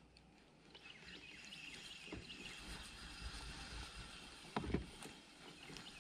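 A spinning rod cast and the reel cranking line back in, a faint run of ticks and hiss. There is one sharp knock about four and a half seconds in.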